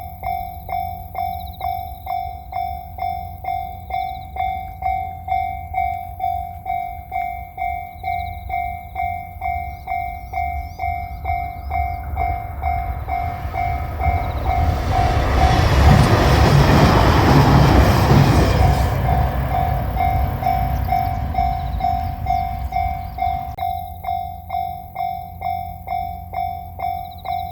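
Japanese level crossing warning bell ringing, about two strikes a second. About 14 seconds in, a 2700 series diesel limited express train passes, swelling loud and drowning out the bell for several seconds, then fading as the bell rings on.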